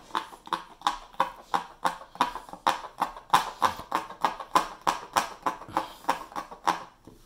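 Felting needle stabbing repeatedly through a stretched artist's canvas, driving wool fibre in: a steady run of sharp taps, about three a second, that stops near the end.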